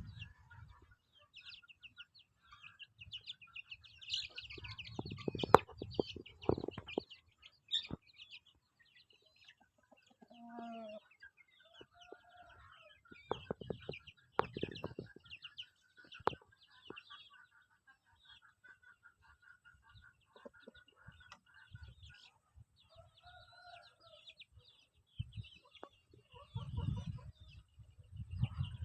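A flock of young chickens, about a month old, peeping rapidly and clucking, with a few lower, drawn-out calls about ten seconds in and again near twenty-three seconds. Bursts of rustling and thumps come and go among the peeping.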